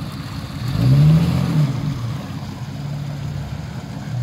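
Jeep Cherokee XJ's engine revving up about a second in and dropping back, under load as the 4x4 crawls across a ditch, then running steadily at low revs.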